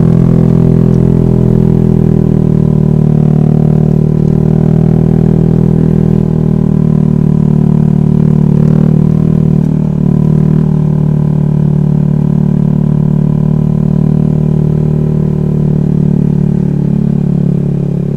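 Honda Vario scooter engine running at a steady pace while riding, a constant low drone that eases off slightly near the end.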